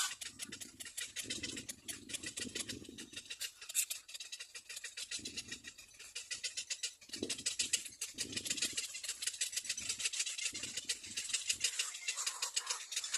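Little black cormorant chicks giving a rapid, high-pitched chittering, with short low rumbles coming and going underneath.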